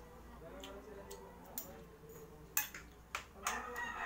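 A spoon and fork clinking and scraping on a plate, a few sharp clicks with the loudest about two and a half seconds in. Near the end a rooster starts crowing.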